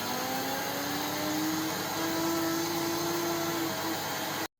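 Countertop blender motor running at full speed, grinding dry rolled oats into flour; its whine climbs a little in the first second, then holds steady, and cuts off suddenly near the end.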